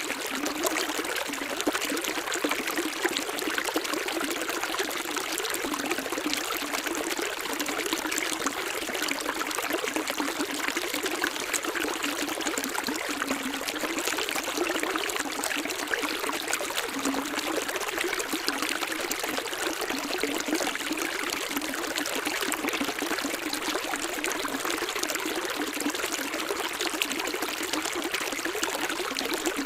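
Running water of a small stream, trickling and splashing steadily without a break and without a deep rumble.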